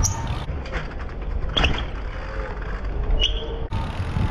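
Low rumble of BMX tyres rolling over skatepark concrete, with wind on the microphone, and three sharp knocks about a second and a half apart.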